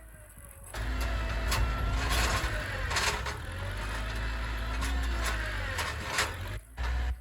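Tractor engine working hard, its pitch rising and falling, with scattered knocks and clatter. It cuts in abruptly under a second in and drops out briefly near the end.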